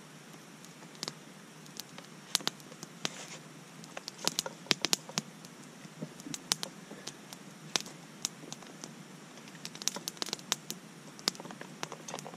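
Wood campfire crackling, with irregular sharp pops that come in clusters.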